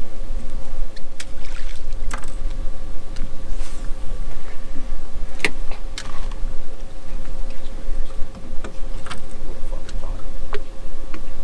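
Sound on board a small fishing boat at rest on the water: a steady low rumble and a constant hum, with scattered light clicks and knocks. The sharpest click comes about five and a half seconds in.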